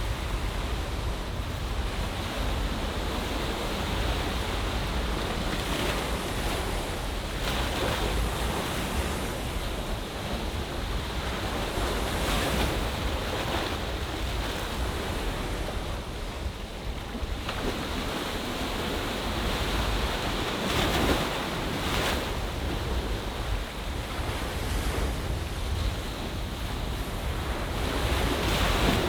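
Ocean waves washing in a sea bay, the surf swelling and easing every few seconds, with wind rumbling on the microphone.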